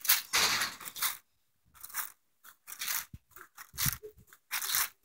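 Footsteps crunching on gritty pavement and gravel, a step roughly every second, with a short pause about a second in.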